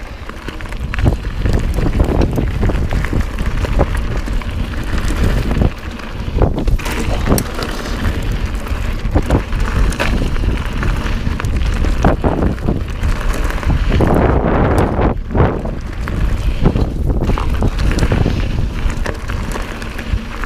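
Heavy wind noise buffeting the microphone of a mountain bike riding down a rough trail, with frequent knocks and rattles from the bike.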